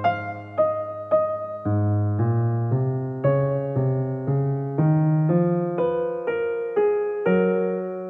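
Background piano music: a slow, gentle melody of single struck notes, about two a second, over held bass notes.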